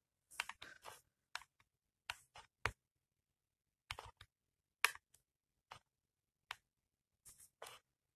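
Faint, scattered clicks and taps of fingers handling a Canon PowerShot SX130 IS compact camera's body, about a dozen short sharp ones spaced irregularly.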